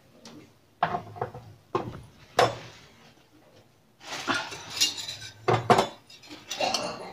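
Spoon clinking and tapping against a bowl as spice powders are spooned into gram flour: a few separate sharp taps in the first half, then a busier run of clinks and scraping near the end.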